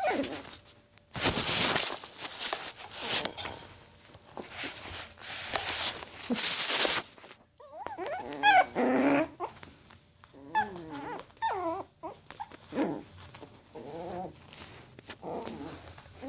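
Six-week-old Yorkshire terrier puppies playing: loud rustling and scrabbling on puppy pads for the first several seconds, then repeated short, high-pitched whimpers and small play growls from about eight seconds in.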